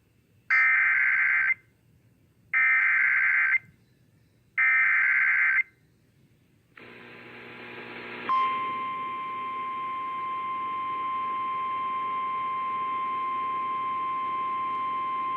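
EAS SAME digital header sent three times: three harsh one-second data bursts about two seconds apart, signalling the start of a new weather warning. Then receiver hiss comes up and, about eight seconds in, the steady single-pitch NOAA Weather Radio warning alarm tone starts and holds.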